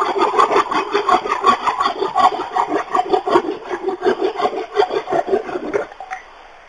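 Hand saw cutting through a wooden branch in quick, even back-and-forth strokes that stop about six seconds in.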